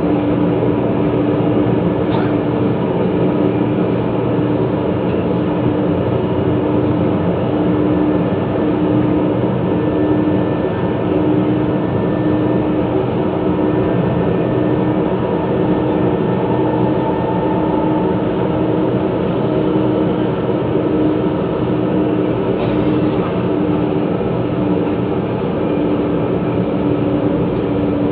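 Manila MRT Line 3 train running at speed between stations. A steady rumble of wheels on rail carries a steady hum, with two faint clicks.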